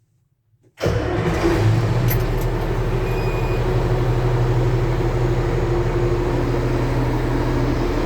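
K-700 tractor's freshly rebuilt diesel engine starts abruptly about a second in and settles straight into a steady idle.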